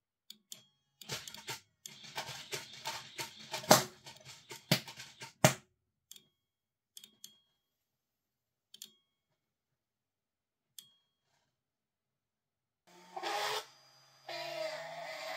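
Crackling and sharp pops from an overvolted DVD drive's electronics shorting out and burning at 15 V, with three loud snaps, then a few scattered single clicks as it dies.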